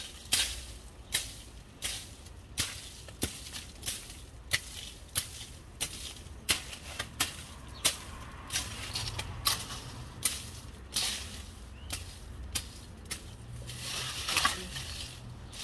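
Dry banana leaves being cut and pulled off the plant: a string of sharp snips and crackles, roughly one to two a second, some followed by a short rustle of dry leaf.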